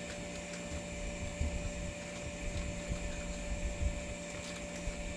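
A steady machine hum: a low rumble carrying a constant whine that never changes pitch, cutting off abruptly at the end.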